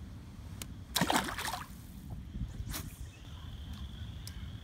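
A released bluegill drops back into the lake with a splash about a second in, followed by light water sloshing.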